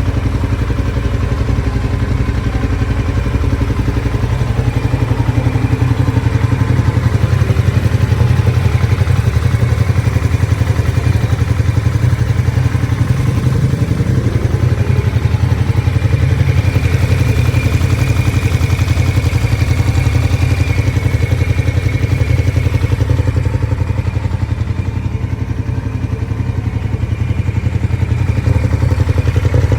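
Ducati Diavel's L-twin engine idling through its original factory exhaust, a steady fast pulse with a slight rise in revs about halfway through.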